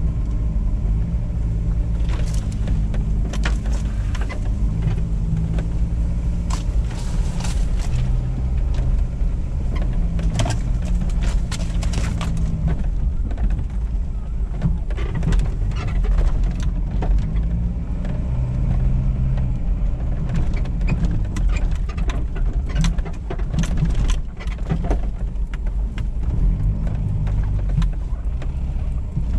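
Toyota Land Cruiser KZJ78's 1KZ-T 3.0-litre turbo-diesel engine pulling the truck along a rough dirt track, heard from inside the cabin, its note rising and falling. Frequent knocks and rattles come through as it goes over bumps.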